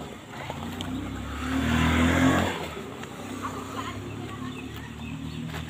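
A motor vehicle's engine passing by: it swells to its loudest about two seconds in, then fades to a steady background hum.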